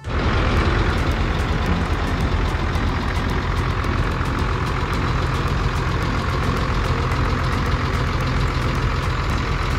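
A large diesel bus engine idling steadily while the bus stands at the roadside.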